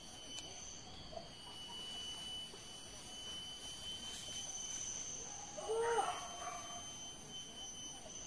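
Steady high-pitched drone of insects, several even tones held throughout. About six seconds in, a hunting dog gives a short whine that rises and falls.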